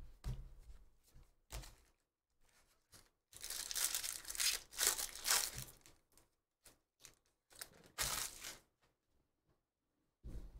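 Foil wrapper of a 2019 Bowman Draft jumbo pack being torn open and crinkled, loudest from about three to six seconds in. Shorter rustles and clicks of cards being handled come before and after.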